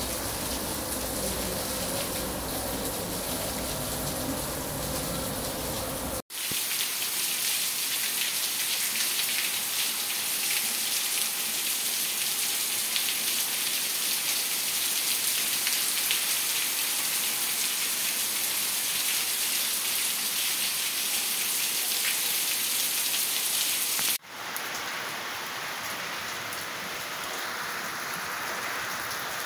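Steady heavy rain, in three recordings joined by sudden cuts. The first part has a low rumble under the rain. About six seconds in, the rain turns louder and brighter, with close raindrops. Near the end, it softens to rain falling on tiled roofs.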